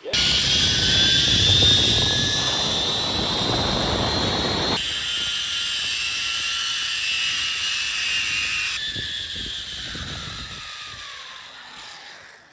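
Zip-line trolley pulleys whirring along the cable in a high whine, with wind rushing over the microphone in the first few seconds. The whine slowly falls in pitch and fades near the end as the rider slows toward the landing.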